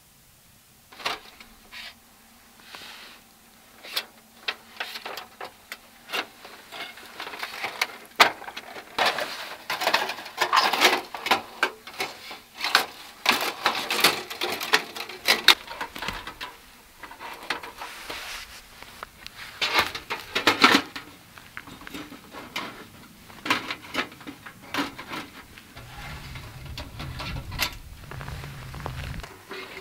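Thin titanium sheet-metal panels of a folding backpacking stove clicking, clinking and rattling as the stove is unfolded and assembled by gloved hands, in many short irregular bursts. A low rumble comes in for a few seconds near the end.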